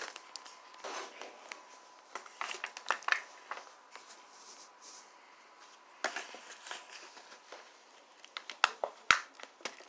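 Plastic food packaging crinkling and rustling as it is handled, with scattered sharp clicks and taps coming in clusters.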